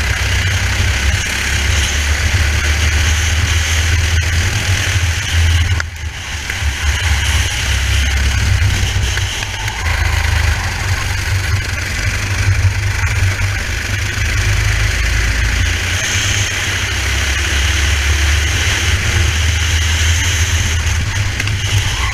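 Racing kart engine running hard, heard from a helmet camera, with heavy wind buffeting on the microphone. The sound dips briefly about six seconds in, then picks back up.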